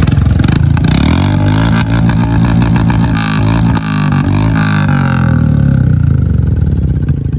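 Royal Enfield Meteor 350's single-cylinder engine running loudly through an aftermarket free-flow 'Mini Punjab' silencer, its pitch rising and falling as it is revved.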